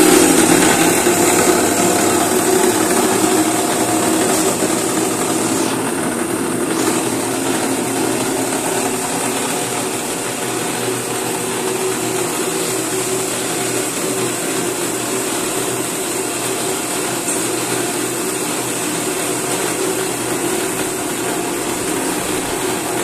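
Palm sugar grinding machine running steadily, a motor hum with a mechanical whir. It grows quieter over the first several seconds, then holds even.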